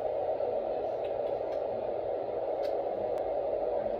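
A steady, even rushing noise, strongest in the low-middle range, with a couple of faint clicks past the middle.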